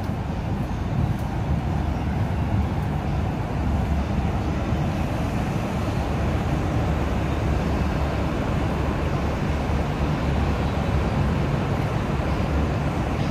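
Steady low rumble of road traffic and bus engines.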